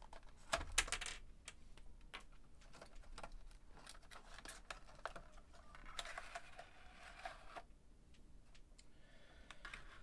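Cardboard packaging and a clear plastic tray being handled as an earbud box is opened: light clicks and taps of fingers on card and plastic, loudest about a second in, and a longer sliding scrape about six seconds in as the tray comes out of the box.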